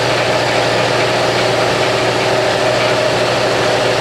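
Hydraulic press pump motor running with a steady, even hum.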